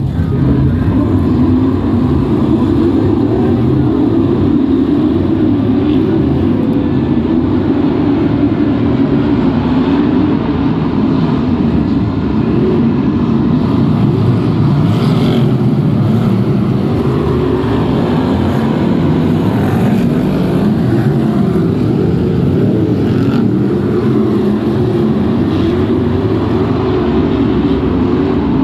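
A pack of BriSCA F1 stock cars' V8 engines running steadily at low revs as the cars roll slowly in formation before the race start.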